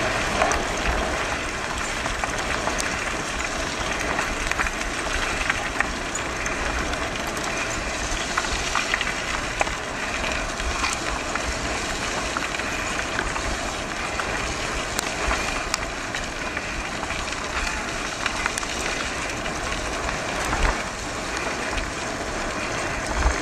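Bike tyres rolling fast over a wet gravel track, with wind rushing over the camera microphone: a steady hiss and low rumble with scattered small clicks of grit.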